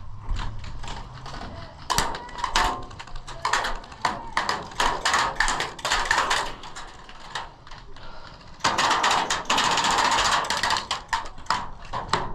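Airsoft gunfire: scattered sharp shots and BB impacts, then a continuous rapid burst of full-auto fire lasting about a second and a half, a little past the middle.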